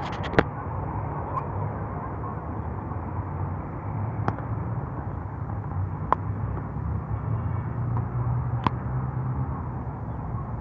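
Outdoor ambience: a steady low rumble and hiss, broken by four sharp clicks.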